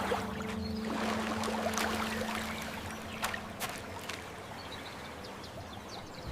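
Running river water with scattered small clicks, getting gradually quieter. Held music notes fade out during the first few seconds.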